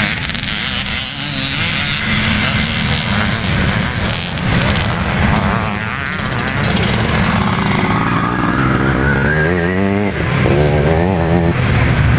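Vintage motocross motorcycles racing, their engines revving up and down as riders accelerate and back off, several bikes at once. About two-thirds of the way through, one engine climbs steadily in pitch, and it is loudest in the last couple of seconds as a bike passes close.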